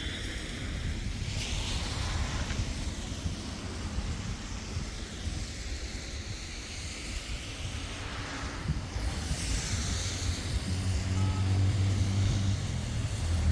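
Traffic on a wet road with wind rumbling on the microphone: two passing tyre hisses swell and fade, and an engine's steady hum builds in the last few seconds.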